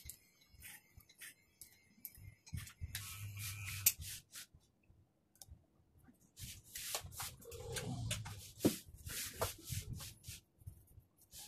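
Short, irregular scratchy strokes and clicks of barber's tools working on a man's short hair, coming in bunches with a pause about four to six seconds in.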